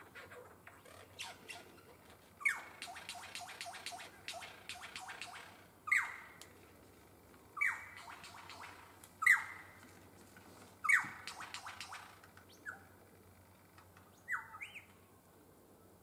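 Superb lyrebird calling: a series of loud calls every second or two, each a sharp downward-sweeping note, several followed by a quick run of clicks. The last call, near the end, rises instead.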